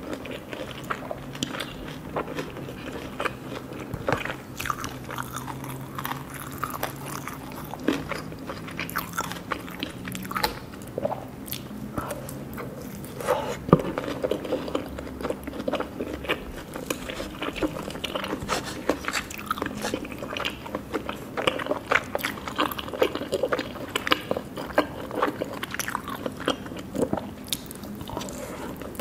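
Someone biting and chewing crunchy food: a dense, irregular run of short crisp cracks, over a faint steady low hum.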